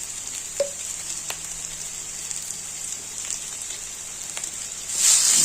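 Crushed ginger, turmeric and black pepper frying in ghee in a kadhai: a steady sizzle with a few scattered crackles, growing louder about five seconds in.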